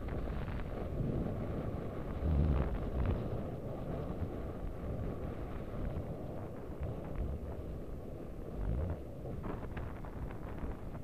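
Wind buffeting the microphone of a camera riding along on a mountain bike, a steady low rumble. A few knocks and rattles cut through it, the loudest about two seconds in and another near nine seconds.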